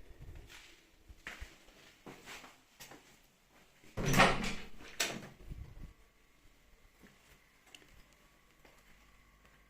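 A series of short knocks and clatter in a small room, loudest about four seconds in, then dying away to a quiet hum.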